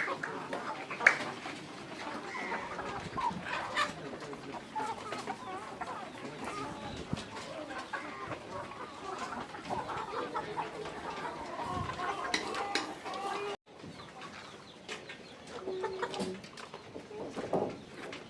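A flock of chickens clucking and calling, many short overlapping calls with scattered pecks and knocks, and a sudden break about two-thirds of the way through.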